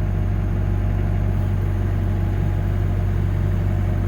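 Dump truck's engine running steadily, an even, deep drone with no change in speed.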